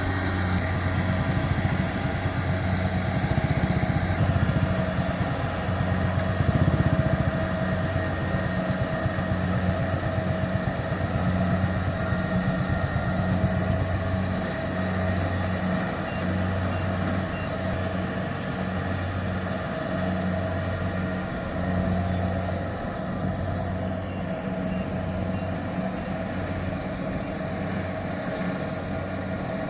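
Kubota DC-70 Plus combine harvester's diesel engine running steadily, with a low throb that pulses about once a second.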